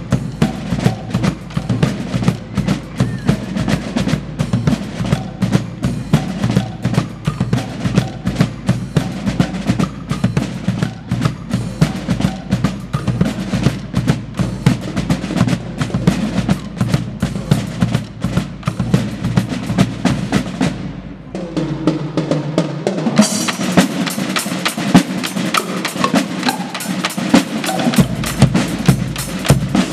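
A drum group playing fast, dense drumming with snare rolls. Just after the 21-second mark the high end thins out for about two seconds, then the strokes come back brighter.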